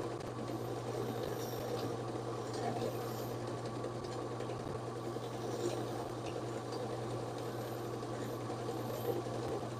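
Electric wire wheel running steadily while a heavily carboned spark plug is held against it, scrubbing off the carbon deposits.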